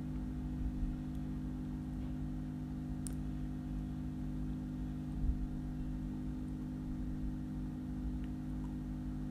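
Steady low electrical hum and background noise from the recording setup, with a faint single click about three seconds in.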